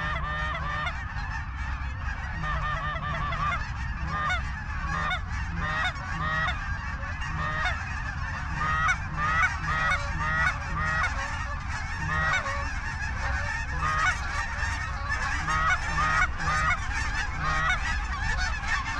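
A large flock of Canada geese honking, many short calls overlapping without a break, over a steady low rumble.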